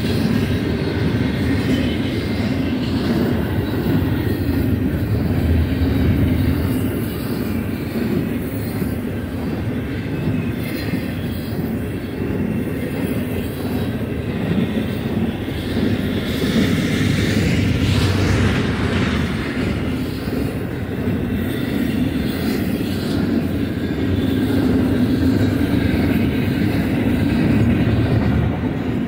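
Double-stack intermodal well cars rolling past fast: a steady rumble and rattle of steel wheels on rail. The sound turns sharper and higher for a couple of seconds a little past the middle.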